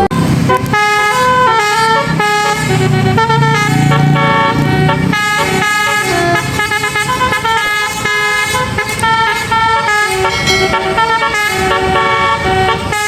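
Bus telolet horn of the basuri type, a multi-tone horn playing a continuous melody of quickly changing notes.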